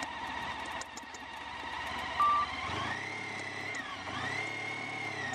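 Honda ST1300 Pan European's V4 engine running at low speed, its pitch rising with the throttle about three seconds in, dipping briefly, then rising again. A short electronic beep a little after two seconds.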